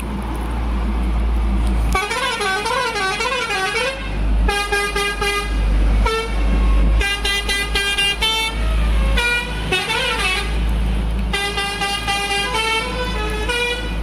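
Truck musical horn sounding tunes: a warbling, siren-like phrase about two seconds in, then stepped multi-note phrases repeated again and again, over a low engine rumble.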